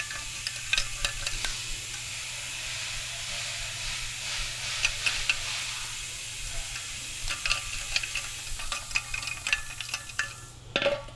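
Light, irregular clicking and rattling over a steady hiss: the removed catalytic converter being handled, with loose material inside it.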